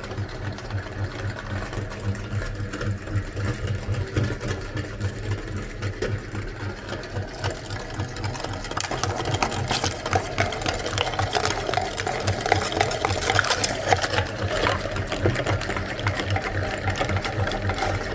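Electric meat grinder running with a low, rapid pulsing motor hum; from about halfway through, louder clicks and crackles come in as it grinds.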